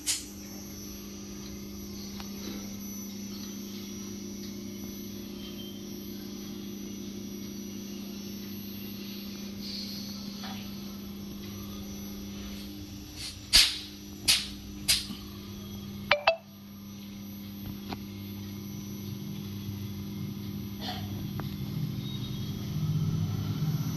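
Steady electrical hum with a few sharp clicks about halfway through, then a low motor-like rumble that builds up near the end.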